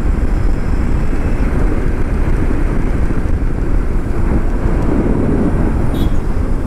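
Steady wind rush over the microphone with tyre and road noise from an Ather 450X electric scooter ridden at about 67 km/h; the electric scooter gives no engine note of its own.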